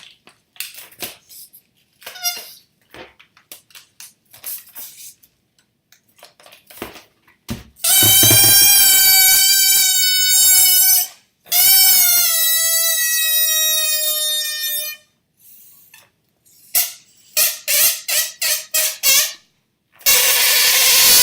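Air let out through the stretched neck of a rubber balloon: two long, loud, horn-like squeals of about three seconds each, the second sagging lower in pitch at the end. A run of short squeaks follows, then a loud noisy burst near the end; before the squeals there is light rubbery handling.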